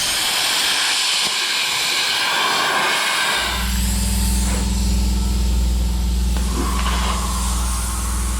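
A steady hiss for about three and a half seconds. It stops, and a machine starts up with a low, steady hum that carries on.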